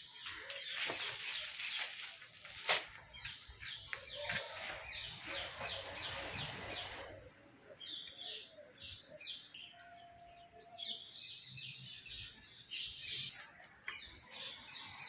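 Rustling and handling of a muslin silk suit piece as it is unfolded, with a sharp click near three seconds in. Small birds chirp over and over in the background, in two runs of quick, high chirps.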